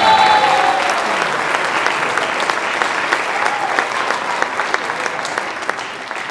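Audience applauding at the end of a musical number, with the last held notes of the music dying away in the first second; the clapping slowly thins out.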